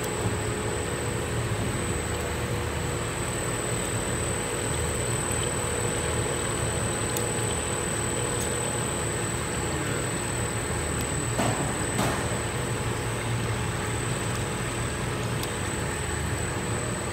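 Small filament extrusion line running: a steady mechanical hum from its extruder drive and roller motors, with a steady high whine over it. There are a couple of light knocks about twelve seconds in.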